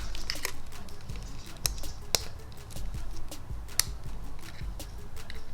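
Small plastic airbag wiring connectors handled and snapped together, a few sharp clicks, the loudest about two seconds in and near four seconds.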